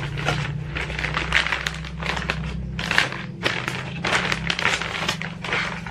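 Plastic shipping package being opened by hand: dense crinkling and crackling rustles of plastic packaging, over and over, with sharper bursts about three seconds in and again near the end.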